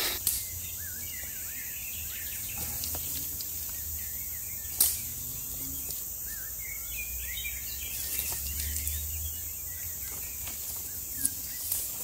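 Woodland ambience: small birds chirping on and off over a steady high hiss, with one sharp snap of a stick just before the middle.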